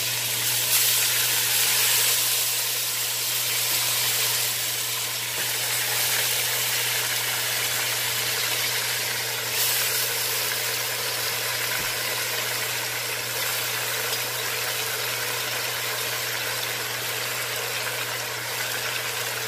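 Oxtail pieces sizzling as they fry in hot vegetable oil in a stainless steel pot, a steady hiss that is a little louder in the first few seconds as the meat goes in. A steady low hum runs underneath.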